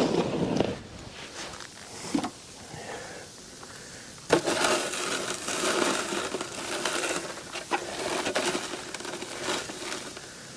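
Crunching and scraping in deep snow: a sharp crunch at the start, a shorter one about two seconds in, then a longer spell of crunching and scraping from about four seconds in until near the end.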